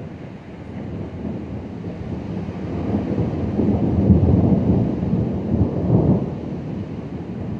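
Rolling thunder: a low rumble that swells to its loudest about halfway through, surges once more near the end, then fades.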